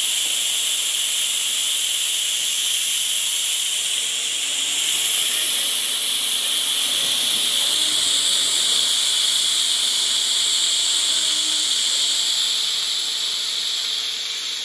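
Compressed air hissing steadily through a pneumatic 50-gallon drum oil dispenser as it pressurises the drum to push oil out through the hose. The hiss starts abruptly, swells slightly about five seconds in and eases a little near the end.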